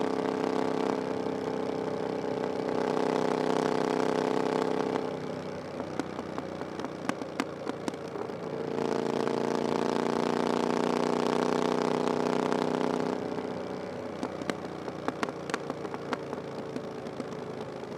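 Triumph Bonneville Scrambler 900's 900cc parallel-twin engine through an aftermarket 'VW pipes' exhaust, pulling steadily under throttle, then rolling off with a run of sharp exhaust pops on the overrun. This happens twice: the second pull starts about nine seconds in and eases off again about four seconds later.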